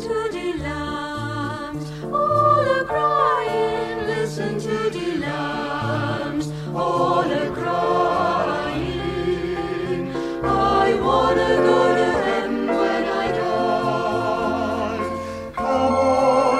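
Salvation Army vocal group singing a gospel song in harmony over low sustained bass notes; after a brief drop near the end, the music comes back louder.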